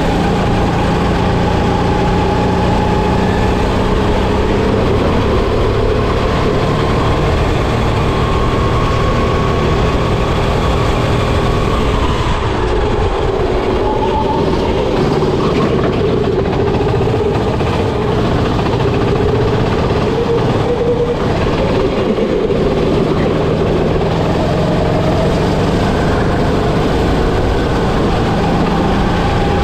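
Go-kart engine running hard on a lap, its pitch climbing steadily along the straights and falling back as the throttle is lifted for corners, about 12 s and 22 s in, over a constant rushing noise.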